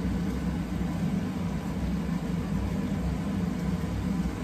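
Steady low machine hum with an even rushing noise, from a running kitchen appliance's motor or fan; no knife strokes stand out over it.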